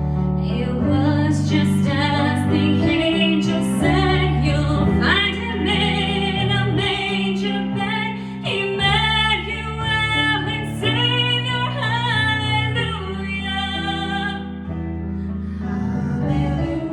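A woman singing a slow song over keyboard accompaniment, with held low chords under her voice.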